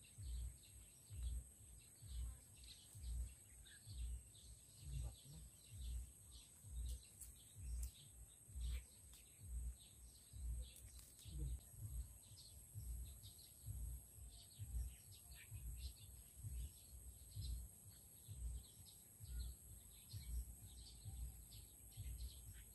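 Birds chirping over a steady high-pitched buzz, with a low thump repeating about three times every two seconds underneath.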